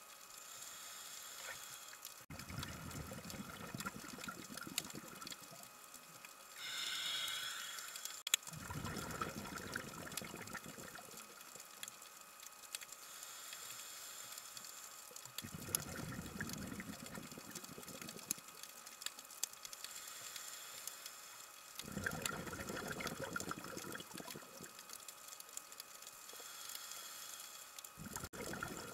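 Underwater sound of scuba exhalation bubbles: five low rumbling bursts of about two seconds each, roughly every six to seven seconds, over a faint steady hiss with scattered clicks.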